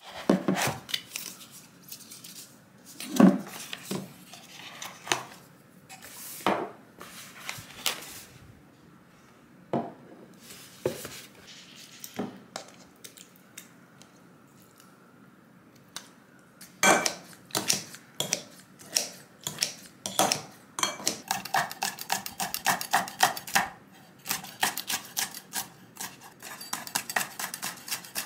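Kitchen handling sounds: scattered clinks and knocks of glass jars and a bottle being lifted and set down, then, from about two-thirds of the way in, a kitchen knife chopping green chili peppers on a wooden cutting board in a quick, even run of chops.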